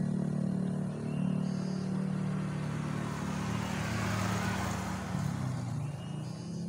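A motor vehicle passing by: its noise swells to a peak about four seconds in and then fades, over a steady low hum.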